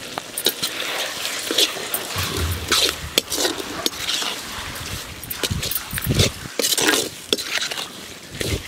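Metal spatula stirring and scraping a wet onion-tomato masala around a kadai, in irregular strokes with clinks against the pan, as it sautés with salt and turmeric.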